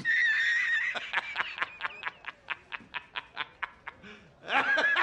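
A man's wheezing laugh: a high held squeal, then a rapid run of short 'ha' pulses, about five a second, that trails off, and a second high squeal near the end as he starts again.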